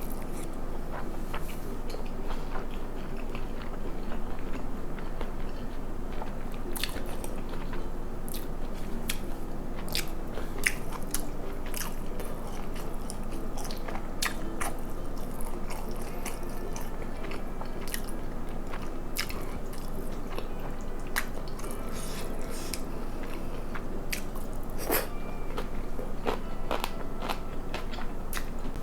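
A person chewing braised kimchi and pork close to the microphone: crunching, with many sharp, wet mouth clicks scattered throughout.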